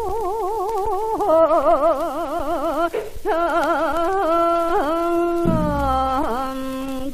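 Korean gasa singing from an old Victor 78 rpm record: a single voice holding long notes with a wide, slow vibrato, breaking off briefly about three seconds in. A low thump sounds about five and a half seconds in.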